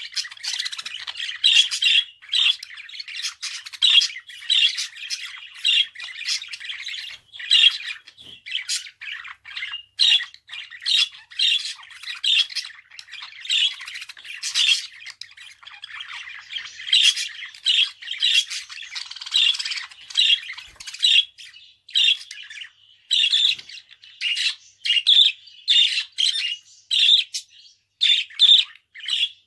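Budgerigar chattering: a continuous stream of short, rapid chirps and scratchy squawks.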